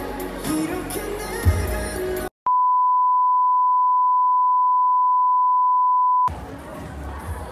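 Music plays for about two seconds and is cut off. Then comes a steady pure beep tone of about 1 kHz, held for about four seconds, standing in for the unrecorded film. It ends abruptly, giving way to the quieter sound of a crowd in a hall.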